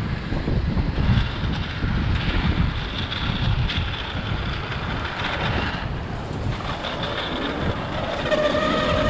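Inline skate wheels rolling over street asphalt with a continuous rough rumble, and wind buffeting the microphone of a moving skater. A pitched sound with a few steady tones comes in near the end.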